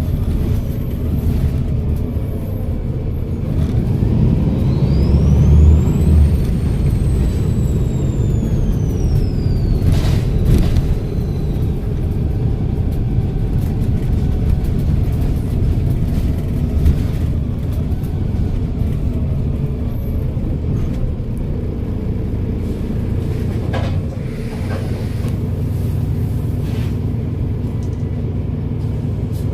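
Volvo B7RLE bus's six-cylinder turbo-diesel engine running under way with a low rumble. Its turbocharger whistle rises sharply in pitch as it spools up about four seconds in, then slowly falls away over the next several seconds. A sharp knock comes about ten seconds in.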